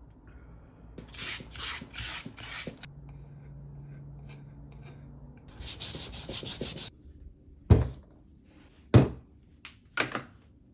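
Sandpaper rasping against a carved wooden spoon in hand-sanding strokes: four strokes about a second in, and a quicker run around six seconds in. Then three sharp knocks near the end.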